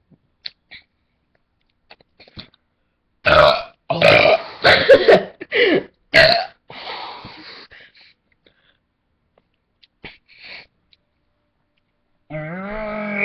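A man burping: about five loud belches in quick succession, trailing off, then near the end a longer, drawn-out belch on a steady pitch.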